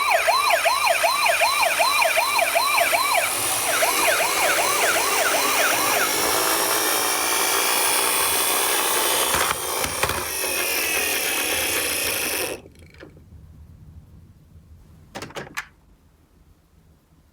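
Electronic sirens of toy ambulances sounding together, one with a fast warbling wail of about three rises a second that breaks off and resumes, over a dense steady rushing noise. Everything cuts off suddenly about twelve and a half seconds in, followed by a couple of faint clicks.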